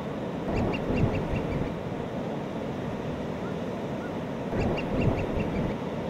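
Steady rush of breaking surf, with a seabird calling twice in a quick series of about seven short, slightly falling notes, each series lasting about a second.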